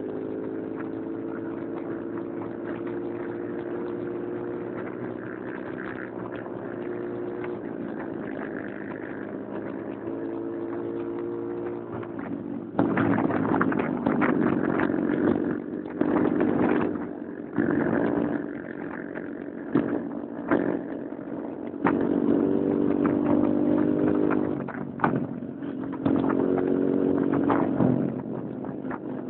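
Motorcycle engine running steadily at cruising speed, heard from a moving bike. From about halfway on, a louder rushing noise comes and goes in abrupt chunks over the engine.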